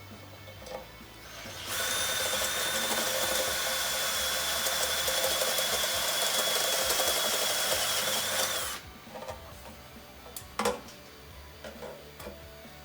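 Small electric motor whirring at a steady speed for about seven seconds, with a high whine that dips as it stops. A few light clicks before and after it.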